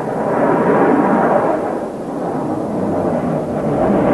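Twin Klimov RD-33 turbofans of a MiG-29 Fulcrum at high power as the fighter pulls up steeply in a low pass: a loud, rough jet roar that eases a little midway and swells again near the end.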